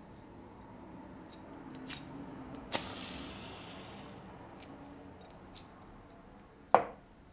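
A match being struck: a short scrape about two seconds in, then a second strike that flares with a hiss that fades over a second or so. Small clicks follow, and a sharp knock near the end is the loudest sound.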